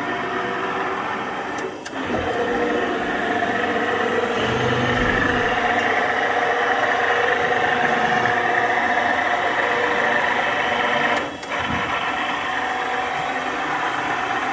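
VZ-173 knife-grinding machine running, a steady mechanical hum with a faint whine. Its sound briefly drops out twice, about two seconds in and again near eleven seconds.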